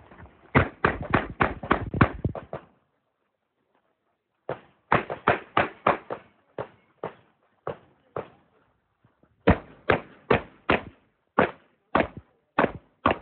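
Revolver being fired rapidly in strings of shots. A first quick burst is followed by a pause of under two seconds, then two more runs of shots with uneven spacing as the shooter moves between targets.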